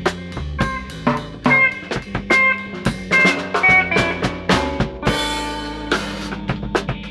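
Instrumental jam on a drum kit, with bass drum, snare and cymbals played in a busy pattern over held bass and guitar notes; a cymbal crash rings out about five seconds in.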